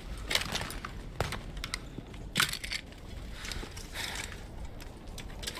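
Sporadic rifle shots, scattered sharp cracks over a low battlefield rumble, the loudest about two and a half seconds in.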